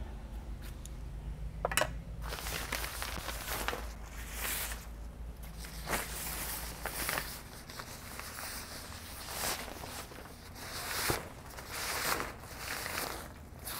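Fabric trike cover rustling and swishing as it is tugged and pulled down over a recumbent tricycle, in a string of separate swishes, about one or two a second.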